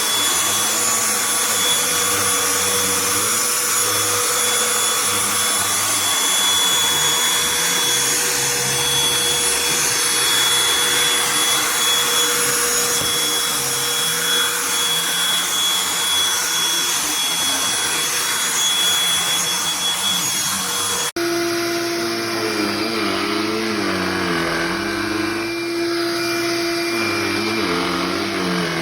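Black+Decker Dustbuster AdvancedClean+ cordless handheld vacuum running continuously, cleaning stairs, with a steady high whine over its airflow noise. About two-thirds of the way through there is a brief break, and the motor's pitch is lower after it.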